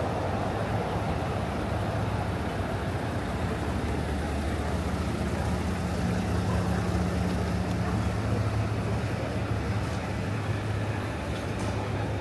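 Steady city street traffic: car engines and tyre noise on the road, with a low engine hum coming up about five seconds in.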